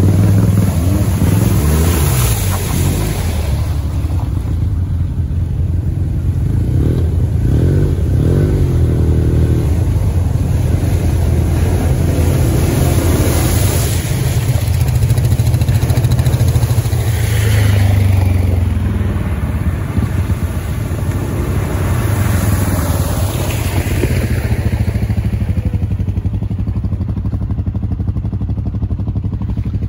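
Off-road ATV engines running hard and revving, the pitch rising and falling with the throttle, while the machines plough through a flooded mud trail with water spraying.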